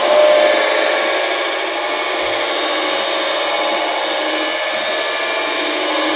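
Dense, steady electronic noise drone with many held tones layered through it and a thin, high tone above.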